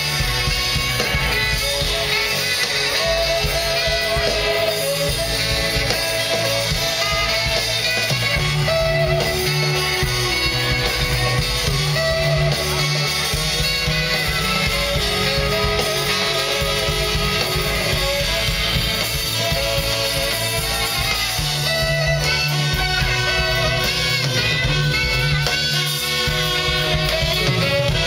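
Live rock band playing through the stage PA, with a horn section of two saxophones and a trumpet playing held notes over drums, bass, guitar and keyboards.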